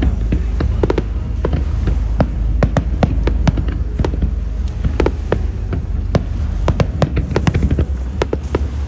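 Fireworks going off in quick, irregular succession: many sharp bangs and cracks over a continuous low rumble.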